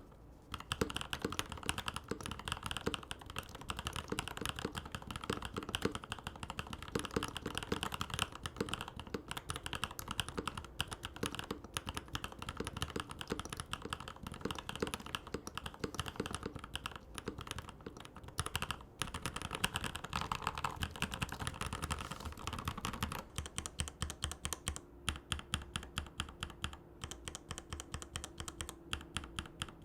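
Typing on a Rama M65B mechanical keyboard with a PVD brass plate and linear switches, a sound test of the switches. Keystrokes come fast and continuous, then about 23 seconds in turn sparser and more evenly spaced, as if another set of switches or another typing pattern begins.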